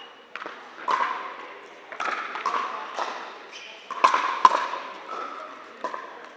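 Pickleball paddles hitting a plastic pickleball in a fast doubles rally: a quick series of sharp, hollow pops about one to two a second, each ringing briefly in a large indoor hall.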